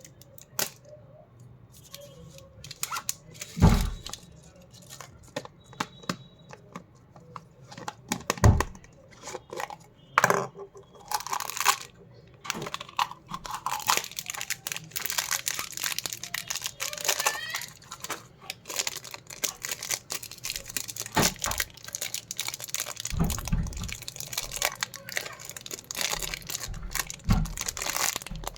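Chocolate and toy packaging being torn open and crinkled by hand, with many small clicks and rustles and a few dull thumps as it is handled.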